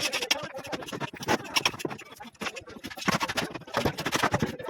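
Slab shuttering work: an irregular run of knocks, clatter and scraping from the formwork being handled and fixed.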